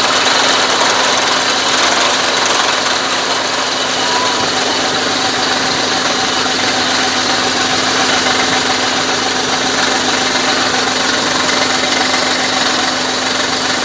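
A water well drilling rig's engine running steadily, with water gushing and splashing out of the borehole around the blue casing pipe.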